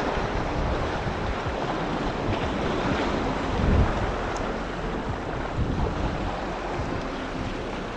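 Wind buffeting the microphone over ocean surf washing against jetty rocks, briefly louder a little before halfway through.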